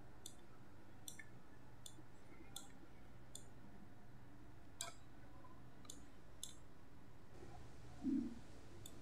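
Computer mouse clicking, about nine sharp clicks at irregular intervals over faint background hiss. A brief low sound comes just after eight seconds.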